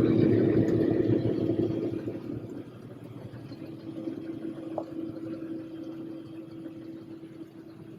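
Tractor engine running with a steady hum, growing quieter over the first two or three seconds and then holding low.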